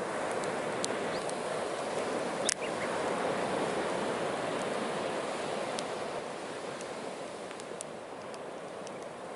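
Driftwood bonfire crackling, with sharp pops scattered through and one louder snap about two and a half seconds in, over a steady rushing noise.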